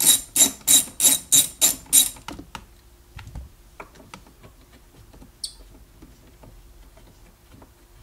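Socket ratchet clicking in a quick even rhythm, about three strokes a second, as it backs out a 10 mm bolt. It stops about two seconds in. Faint handling clicks follow, with one short high squeak midway.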